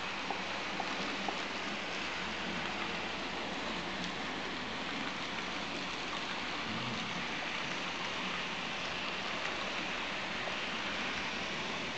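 N-scale model train running on the track: a steady rushing whir with a few faint small clicks.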